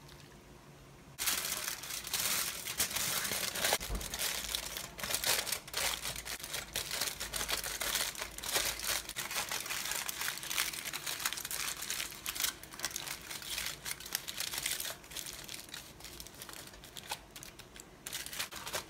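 Aluminium foil crinkling and crumpling as hands fold and press it closed into a parcel around the food. It starts about a second in, runs densely, then thins out near the end.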